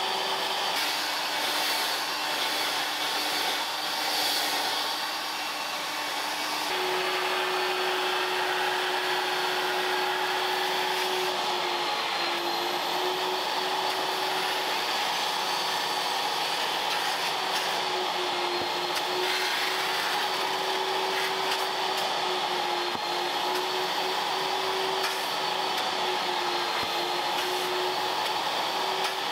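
Vacuum cleaner running steadily, a loud airy rush over a motor hum whose pitch steps down about a second in, back up near seven seconds and wavers a few more times.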